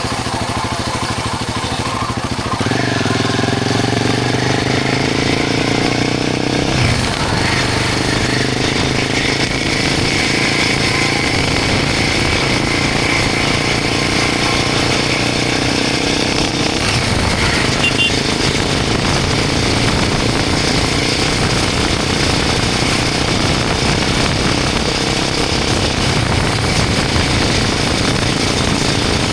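Royal Enfield Himalayan 450's single-cylinder engine running through a Norifumi Long aftermarket exhaust with the dB killer fitted, a deep, bassy exhaust note. The engine speed changes a couple of times in the first few seconds, then the note holds fairly steady.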